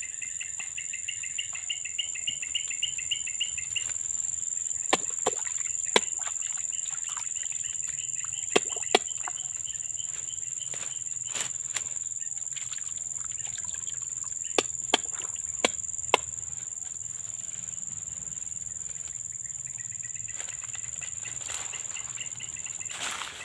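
Insects droning steadily at a high pitch. A fast pulsing trill runs for the first few seconds, and a scattered series of sharp clicks comes through the middle.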